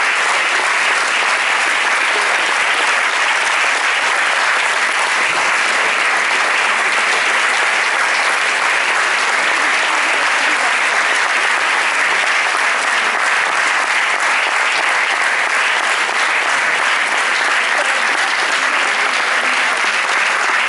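Cinema audience applauding, a long, steady round of clapping that holds at an even level throughout.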